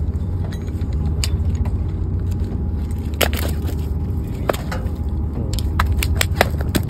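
Freshly landed barracuda flapping on paving stones: sharp slaps and taps, one about three seconds in and a quick run of them near the end, over a steady low rumble.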